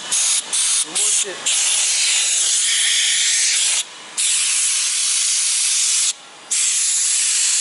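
Compressed-air blow gun hissing as it blows water out of a car's door and window gaps: a few quick short blasts, then three long blasts with brief pauses between them.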